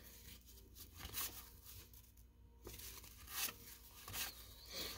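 Faint, soft swishes of cardboard baseball cards (1987 Fleer) sliding against each other as cards are pulled off a hand-held stack one at a time, several strokes spaced about half a second to a second apart.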